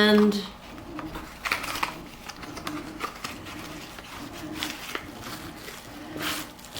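Light rustling and a few scattered clicks from packaging and small lock hardware being handled during unboxing.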